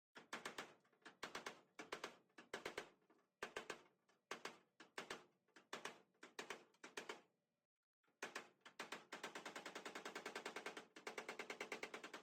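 Rapid hammering on metal: short bursts of quick strikes, then a long even run of about ten blows a second that stops near the end.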